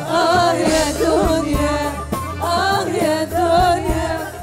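A woman sings drawn-out, wavering lines of an Egyptian-style song over a live band, with a riq (jingled frame drum) and drums keeping the beat.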